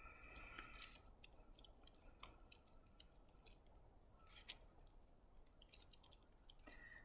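Near silence, with faint scattered clicks and soft squishing of hands kneading flour-dusted salt dough.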